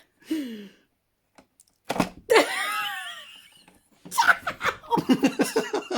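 Human vocal sounds without words: a short falling vocal sound, a pause, then a high-pitched squeal sliding down in pitch, followed by laughter.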